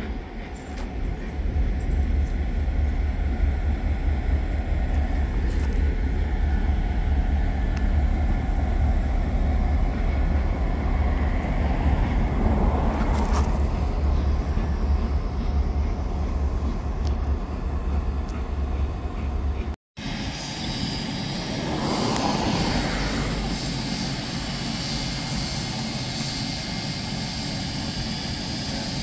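Passenger train rolling past with a diesel locomotive running at the rear, a loud steady low rumble that swells as the locomotive goes by. After an abrupt cut, a steady hiss beside the standing NSW 32 class steam locomotive 3265.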